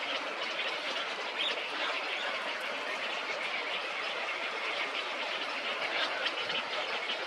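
Steady outdoor ambience: an even hiss with many short, high ticks scattered through it, level throughout.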